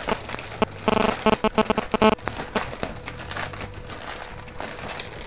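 Plastic courier mailer bag being pulled and torn open by hand: loud crackling and crinkling for about the first two seconds, then softer crinkling.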